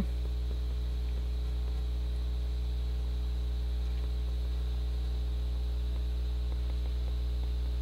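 Steady low electrical hum with a faint buzz, unchanging throughout.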